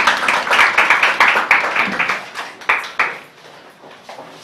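A small group applauding with rapid, uneven hand claps that die away about three seconds in.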